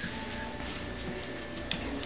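Two dogs play-wrestling on a rug: soft scuffling of bodies and paws, with one sharp click near the end.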